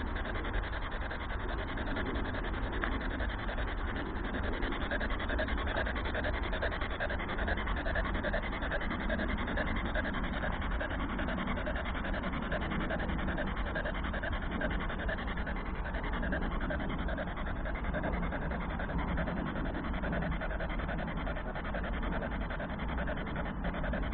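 Handheld radio-sweep ghost box (spirit box) giving out a steady rasping radio static, with no clear voice in it.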